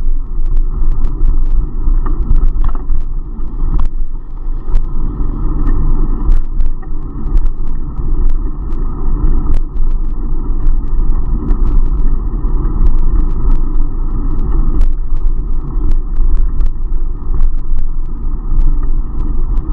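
Steady wind buffeting and road rumble picked up by a bicycle-mounted action camera while riding, low and muffled, with many small sharp clicks and knocks scattered throughout.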